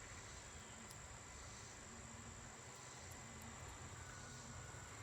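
Faint, steady high-pitched insect chirring, with a low hum and brief passing buzzes of honeybees around the open hive.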